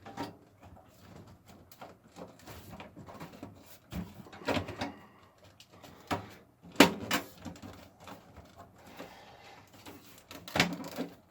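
Cover being fitted back onto a desktop PC case, not going on easily: scattered scrapes and clunks, the loudest a sharp knock about seven seconds in.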